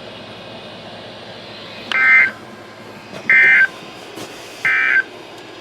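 NOAA Weather Radio SAME end-of-message code: three short bursts of digital data tones, a little over a second apart, over steady radio static. They mark the end of the warning broadcast.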